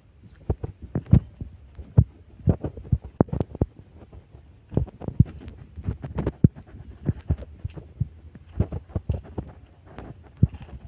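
Footsteps and handling thumps on a handheld phone's microphone as it is carried along a dirt bank: an uneven run of short, dull low thuds, two or three a second, over a faint low rumble.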